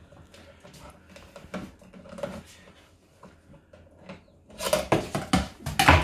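Faint light taps as a grey parrot works at a green plastic cup on a coffee machine. About four and a half seconds in comes a loud burst of clattering knocks as the cup is knocked off the counter and hits and bounces on the tiled floor.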